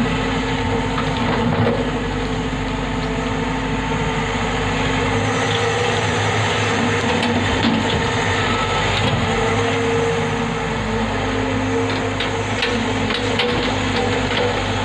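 Hyundai Robex 110-7 crawler excavator's diesel engine running steadily under hydraulic load as it digs, lifts and swings a bucket of soil and rock over a tipper truck, with a few light knocks of stone near the end.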